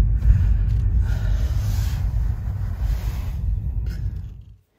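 Car cabin road noise while driving: a steady low rumble of tyres and engine, fading out near the end.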